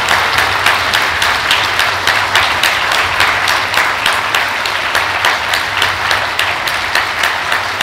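Large seated audience applauding, many hands clapping densely together, easing off slightly near the end.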